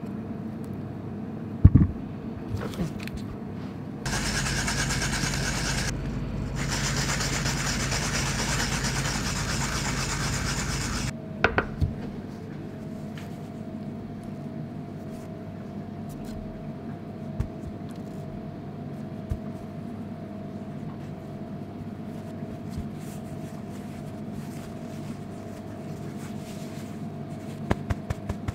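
Kitchen prep handling: a paring knife peeling a turnip, with a sharp knock about two seconds in, then several seconds of steady rushing noise. Quiet handling of paper towel and a metal tray follows, over a steady hum, with a few light taps near the end.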